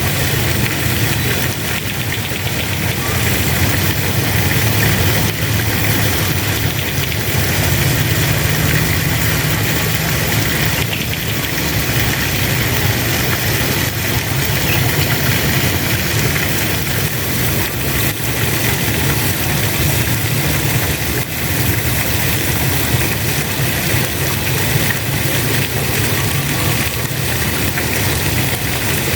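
Water spraying steadily, with a low, steady hum underneath.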